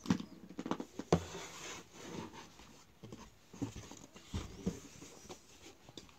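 Handling noises from a small whiteboard and marker pens: irregular knocks and clicks mixed with short stretches of scraping and rubbing as the board is moved and tilted.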